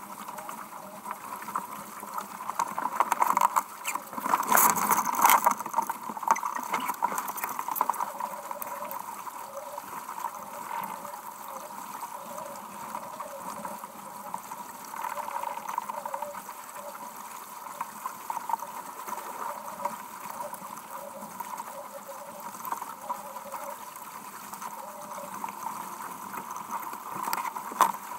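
Water rushing and splashing along the hull of a heeled sailboat under way in rough water, with a louder surge about four seconds in.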